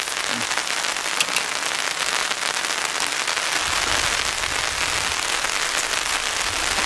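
Rain pattering steadily on a camping fly sheet overhead, a dense hiss of drops. A low rumble joins it about halfway through.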